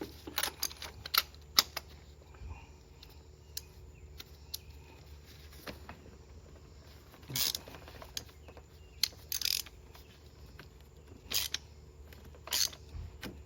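Spark plug socket and removal tool clicking and scraping on metal while a tight spark plug is worked loose from its deep plug well: irregular sharp clicks, the loudest about one and a half seconds in.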